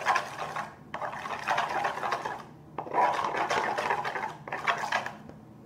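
Metal spoon stirring a foamy mixture of glue and shaving cream in a plastic bowl, scraping and rubbing in three bouts with short pauses, then stopping near the end.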